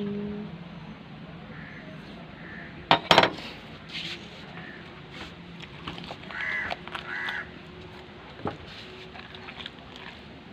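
Crows cawing several times, with two harsh caws about six and seven seconds in. A couple of sharp knocks about three seconds in are the loudest sound.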